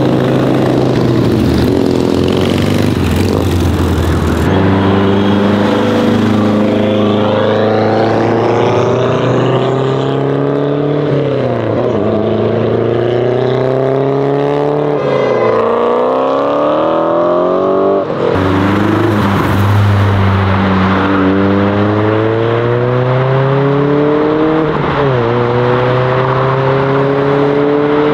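Modified cars accelerating away one after another, loud. Each engine note climbs in pitch and drops sharply at each upshift before climbing again through the next gear.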